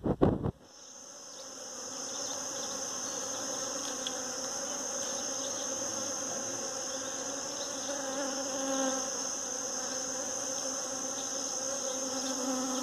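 Many bees buzzing steadily as they work the blossoms of a pitanga tree, with a loud buzz now and then as individual bees fly close, over a constant high-pitched whine. There is a brief loud noise right at the start.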